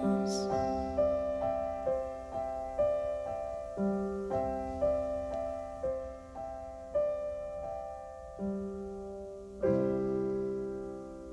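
Slow, gentle piano music: single notes struck one or two a second and dying away, slowing toward a final chord near the end that is left to ring and fade.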